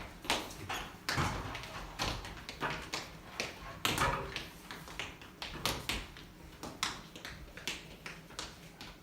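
Irregular taps and thuds of people moving on a stage floor during a movement exercise, about two a second.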